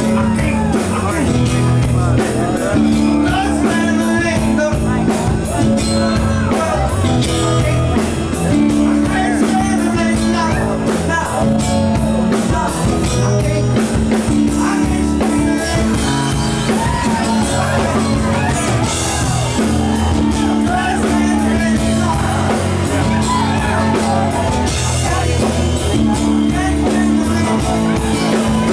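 Live rock band playing, with a man singing lead over acoustic guitar.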